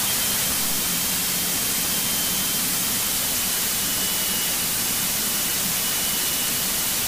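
Steady rushing hiss of airflow and engine noise in a Cessna light plane's cockpit on final approach with power reduced to about 1500 rpm, with a faint low hum underneath.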